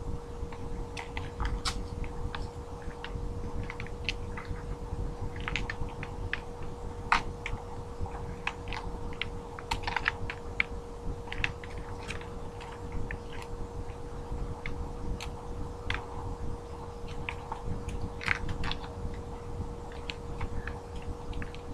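Devil sticks being juggled: the two hand sticks tap the centre stick in irregular runs of light, sharp knocks, over a steady faint hum.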